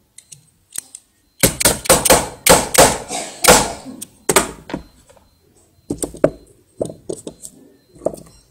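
Dense run of sharp metal clicks and knocks for about three seconds, then a few scattered ones: pliers and a micro coreless motor's metal can knocking against each other and the work board as the motor is twisted to free its magnet.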